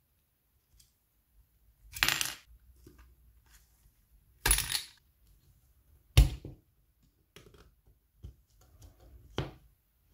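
Small metal parts of a military pocket signal lamp's steel housing being pried apart and handled: four short metallic clinks and scrapes, about 2, 4.5, 6 and 9.5 seconds in, with fainter small knocks between them.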